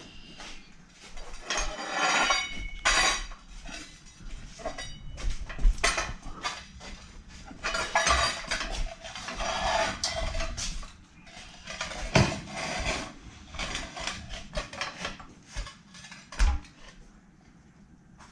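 Metal hand tools and car parts clinking, clanking and scraping in irregular bursts, with a few sharp knocks.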